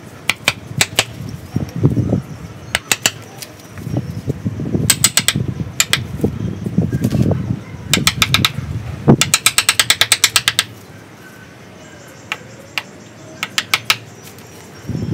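A wood chisel being driven into the trunk of a sanh (Ficus) bonsai, hammered with a chunk of ceramic tile: sharp clicking strikes in bursts, including quick runs of about ten a second. Low scraping noise from the carving fills the gaps between runs.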